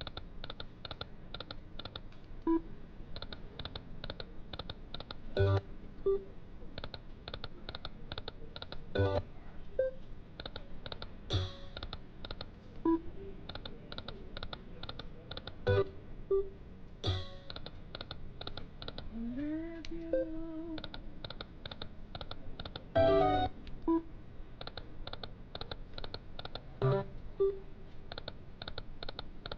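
Lightning Link Sahara Gold video slot machine spinning game after game: a steady fast electronic ticking of the spinning reels, about four or five ticks a second, broken every few seconds by a louder chime as a spin starts or the reels land. A short rising electronic tone sounds about twenty seconds in.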